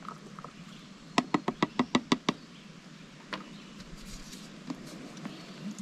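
AeroPress paddle stirring coffee in the plastic chamber, knocking against the wall in a quick run of about ten sharp clicks lasting about a second, followed by a couple of single taps.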